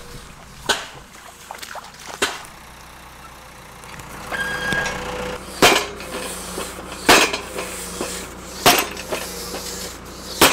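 Tractor-mounted hydraulic post driver knocking a wooden fence post into the ground: sharp knocks of the drop weight on the post top, the last four about one and a half seconds apart, over the steady hum of the tractor engine and hydraulics that comes in about halfway through.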